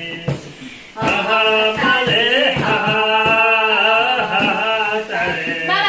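A man singing a song with long held notes after a short pause about a second in.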